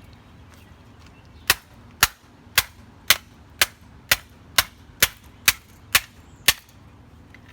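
A plastic TV remote struck hard eleven times in a steady rhythm, about two sharp cracks a second, as its battery cover is beaten until it breaks.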